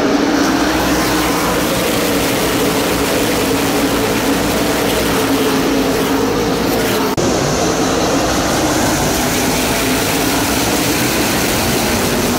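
A pack of NASCAR Camping World Truck Series trucks racing at speed around the track, their V8 engines making a loud, continuous drone. There is a brief dip about seven seconds in.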